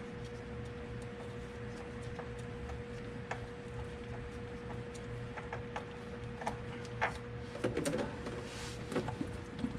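Scattered small clicks and knocks of parts and tools being handled while the spin-on oil filter is worked off, sparse at first and busier in the second half, with a short cluster of knocks about eight seconds in. Under them runs a steady hum with a single steady tone.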